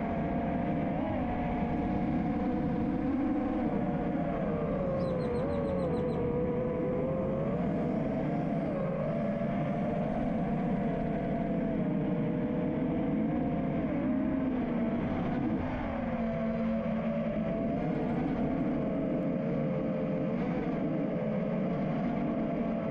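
FPV freestyle quadcopter's brushless motors (Ethix Stout 2306, 1750 kV) whining in flight, the pitch rising and falling with the throttle.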